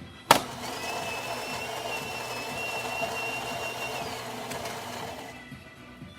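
Gaggia Titanium super-automatic espresso machine starting with a sharp click, then its built-in coffee grinder running for about five seconds: a steady motor whine over grinding noise that dies away near the end.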